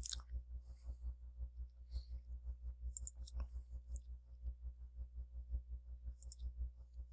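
Faint clicking of a computer mouse and keyboard, with a few sharper clicks among rapid soft ticks, over a steady low hum.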